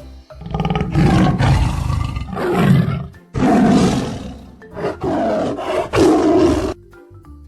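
Tiger roaring several times in a row, loud, rough calls each about a second long with short breaks between them.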